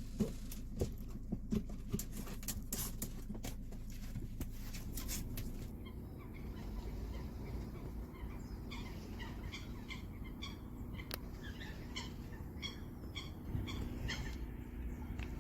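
Birds chirping in short repeated calls, over a low steady hum. A run of sharp clicks and knocks comes in the first few seconds.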